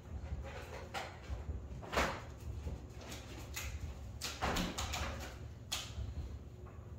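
Scattered knocks and clacks of things being handled in a kitchen, the loudest about two seconds in, over a steady low hum.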